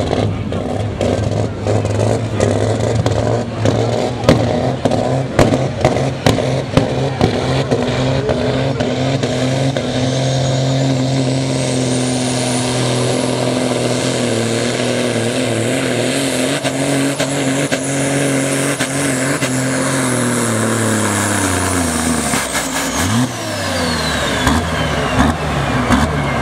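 Modified pulling tractor engine at full throttle under load, running at steady high revs with sharp crackles over the first several seconds. A high whine rises about ten seconds in and holds; near the end the throttle comes off and the engine and the whine wind down together.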